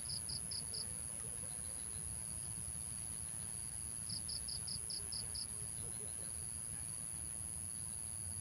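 Insects chirping: two short trills of about six quick pulses each, one at the start and another about four seconds in, over a steady high thin drone and a low rumble.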